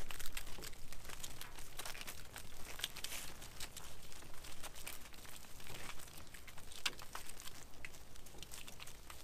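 Sheep hooves on wet, frosty concrete: many small, irregular clicks and crunches as the flock walks out of the pen.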